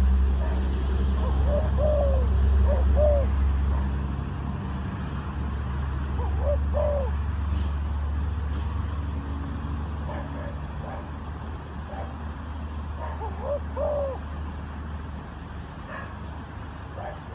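Spotted dove cooing: a few groups of short arched notes, over a steady low rumble that eases after the first few seconds.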